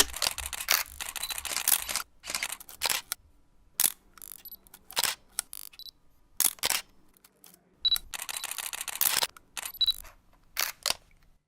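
Mechanical clicking sound effects. There are two stretches of rapid, dense clicking, one at the start and another about eight seconds in. Between them come single sharp clicks and short bursts of clicks, separated by quiet gaps.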